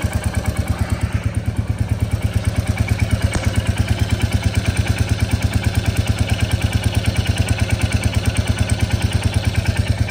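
Royal Enfield Hunter 350's single-cylinder engine idling with a steady, even beat from the exhaust; the engine sounds healthy to the owner.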